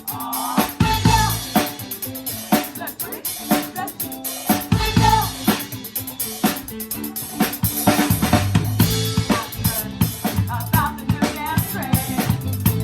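Live band playing a seventies pop-rock song, with the drum kit to the fore: a steady beat of kick drum and snare over bass and other instruments.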